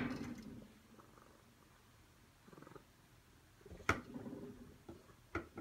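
A cat purring in soft patches, with a sharp click at the start, another about four seconds in and a third near the end.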